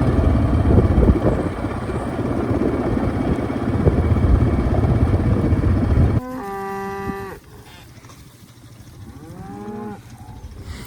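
A loud steady rumble of a vehicle driving the herd stops about six seconds in. Then cattle moo twice: one long level moo, then a shorter one that rises and falls.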